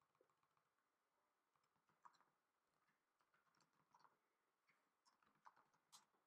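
Near silence broken by a few faint, scattered computer keyboard keystrokes.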